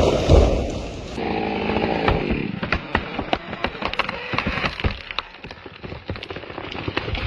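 A few heavy low thuds, then a chainsaw running for about a second, followed by a quick string of sharp cracks and snaps.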